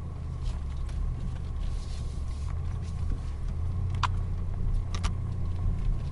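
BMW X5 SUV driving slowly over off-road terrain under light throttle, its engine and drivetrain giving a steady low rumble, with two sharp clicks or knocks about four and five seconds in.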